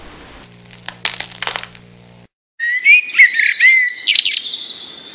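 Cartoon sound effect of an egg cracking open in a few sharp cracks, then after a short pause a newly hatched chick chirping in a quick series of high chirps.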